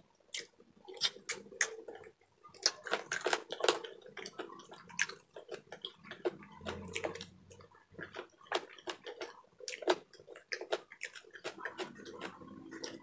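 Wet chewing and lip-smacking of saucy pork and chicken adobo, eaten by hand: many irregular smacks and clicks.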